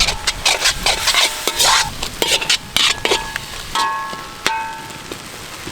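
A ladle stirring a wet masala in a hot kadai, with repeated scrapes and clicks against the pan over a light sizzle.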